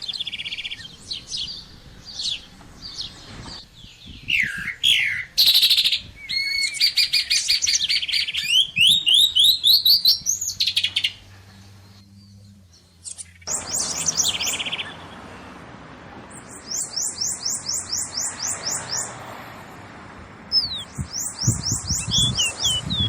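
Several songbirds singing together in a mix of whistles, slurred notes and trills. Near the middle there is a short lull. Then one bird sings a fast run of falling notes, about seven a second, and others keep calling.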